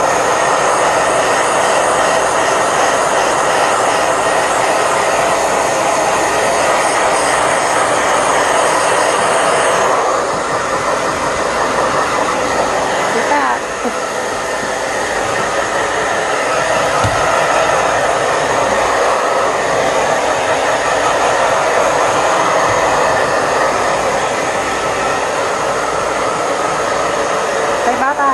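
Handheld hair dryer blowing steadily, drying a wet dog's fur. Its sound thins out about ten seconds in and dips briefly a few seconds later, then runs on evenly.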